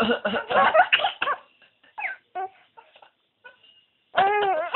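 A man's coughs and a five-month-old baby's laughter set off by them: a quick run of short bursts in the first second and a half, then a high baby laugh from about four seconds in.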